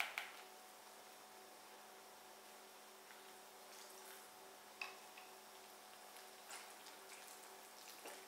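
Faint scattered clicks and taps of a whisk stirring a thin yeast batter for zlabia in a plastic bowl, with warm water poured in from a plastic jug partway through.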